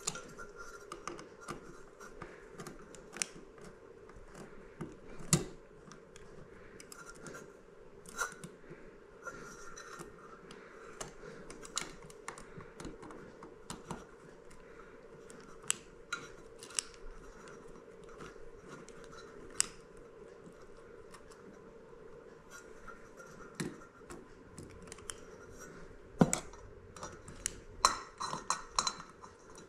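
Small metal washers and light-fixture mounting hardware being handled and taken off a threaded stud: scattered light clicks and clinks, a few sharper taps, and a quick run of clinks near the end, over a faint steady hum.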